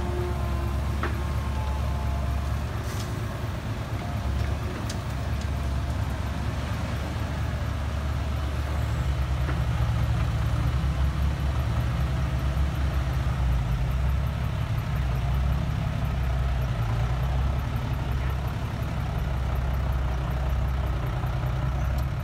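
Heavy diesel engines running steadily as a Komatsu PC130 excavator and a six-wheel dump truck work side by side. The low rumble grows heavier about nine seconds in.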